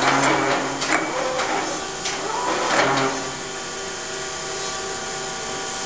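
Chevalier FSG-1224AD automatic surface grinder running with a steady machine hum. Louder rushing swells come in the first second and again near three seconds in.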